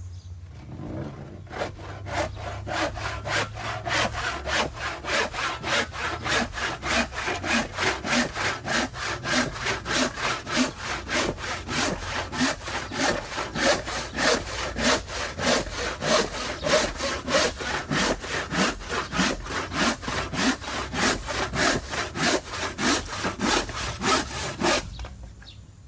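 Hand saw cutting through wood in steady back-and-forth strokes, about two a second, starting about a second and a half in, with a low hum from the record underneath.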